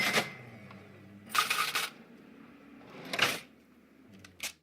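Cash register clattering in three short bursts about a second and a half apart, then a fainter click just before the sound cuts off.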